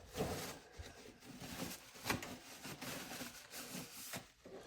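Faint rustling and rubbing with a few light clicks: paper towel handled and wiped along a freshly scrubbed steel knife blade.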